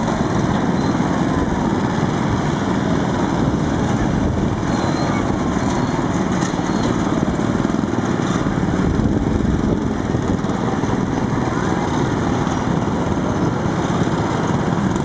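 Small petrol engines of Shriners' miniature parade trucks running steadily as the little trucks drive past one after another.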